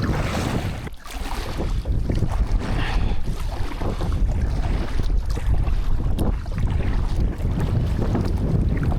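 Wind gusting across the microphone, a loud, low, rough rumble that rises and falls, with a brief lull about a second in.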